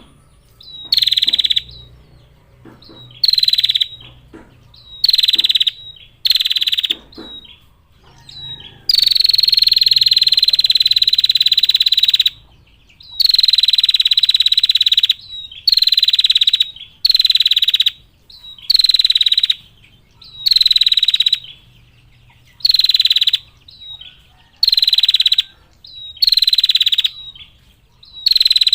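Female prinia (prenjak) giving its rapid, high trill in repeated bursts about a second long, one every second or two. Two much longer trills of about three and two seconds come near the middle.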